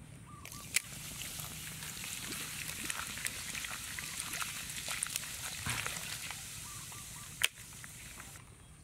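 Liquid poured from a glass bottle into a plastic basin of live scorpions, splashing steadily until it stops shortly before the end. A sharp click sounds just before the pour starts, and a louder one about seven and a half seconds in.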